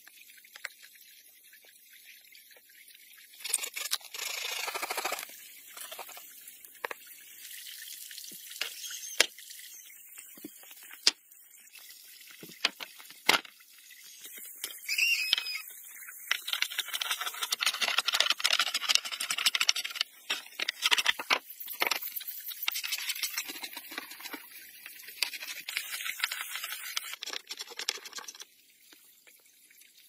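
Hand work on wood: scattered sharp knocks and taps, with longer stretches of scraping noise in the middle and latter part.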